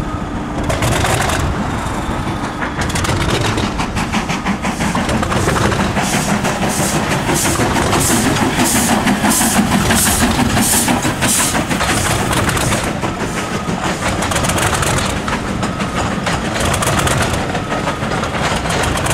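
English Electric 12CSVT V12 diesel engine of a Class 37 locomotive running just after a very cold start, a dense rapid beat with a stronger regular pulsing in the middle stretch.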